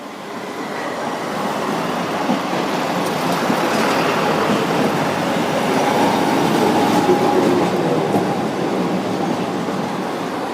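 Sapporo streetcar running in on its rails, the rumble of wheels and running gear growing louder, peaking past the middle with a faint thin whine, then easing slightly as it slows at the stop.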